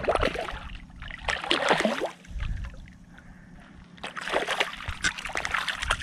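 A hooked hampala barb (sebarau) splashing and thrashing at the surface in shallow water as it is played in to the bank, in several bursts; the loudest comes near two seconds in, and more splashing comes from about four seconds.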